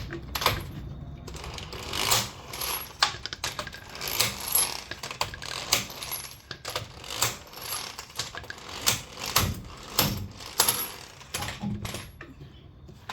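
Irregular clicking and clattering of hand-handled tools and metal parts, single knocks and taps at uneven spacing rather than a steady run of impact-wrench hammering.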